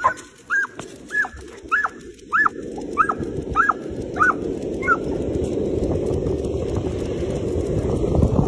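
Dog giving a run of high, excited yelping whines, about eight short rising-and-falling calls each under a second apart, as it sets off pulling on its leash. From about halfway in, running footsteps and wind noise on the microphone grow steadily louder.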